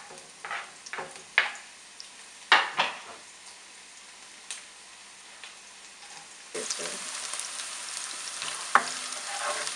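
Chopped onions sizzling in olive oil in a nonstick frying pan, with several sharp knocks and scrapes from a spatula. About six and a half seconds in, the sizzle suddenly becomes much louder and stays steady with small crackles.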